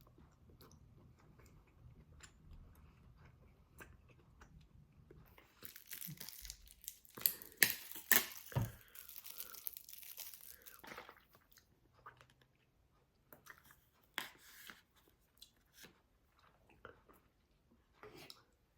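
Close-up eating sounds: crunching bites and chewing of crisp food, a dense spell of loud crackles about halfway through, then occasional single crunches.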